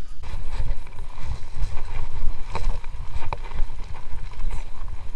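A mountain bike riding down a bumpy dirt trail: an uneven rumble of wind on the microphone and the bike jolting over the ground, with two sharp clicks around the middle.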